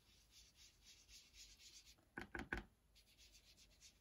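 Foam sponge dauber rubbed in short, quick strokes along the edge of a sticky note onto card stock, a faint scratchy brushing. Three quick knocks come a little past halfway.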